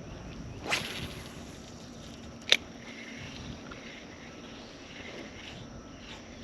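Wind and water noise around a fishing kayak, with a brief swish about a second in and a single sharp click, the loudest sound, a couple of seconds later.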